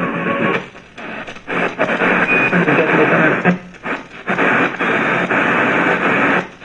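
iBell Castor FM660BT multi-band radio's loudspeaker giving static-laden reception with noisy hash as its tuning knob is turned. The noise drops out briefly about a second in and again around four seconds.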